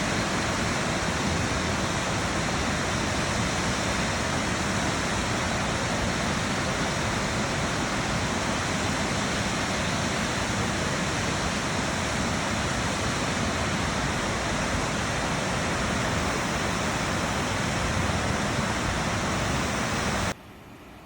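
Waterfall rushing steadily, an even wash of falling water with no breaks; it cuts off abruptly near the end.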